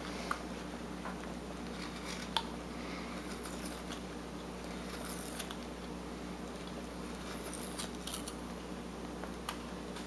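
Carving knife paring wood in short, scraping cuts with a few sharp clicks, over a steady low hum.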